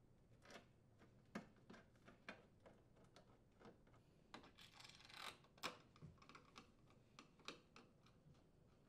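Faint irregular clicks and ticks of a hand screwdriver turning screws into an Electrolux dishwasher's metal door panel, with a short scraping rasp about halfway through.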